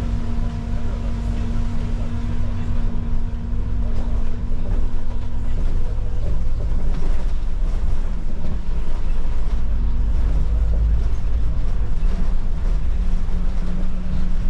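Inside a Solaris Urbino IV 12 city bus on the move: a steady low drivetrain hum and road rumble. The hum shifts in pitch a few times as the bus changes speed.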